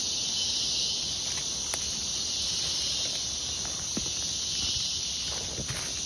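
Steady, dense chorus of rainforest insects, a continuous high buzzing hiss with no breaks, with a few faint clicks now and then.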